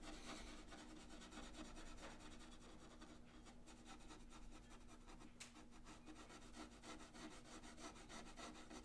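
Faint scratchy rubbing of a pencil scrubbing pastel into thick, toothy watercolour paper.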